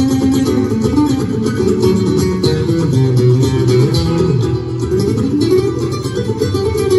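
Live duet of two acoustic guitars playing a nuevo flamenco-style instrumental, with quick runs of plucked notes over a moving bass line.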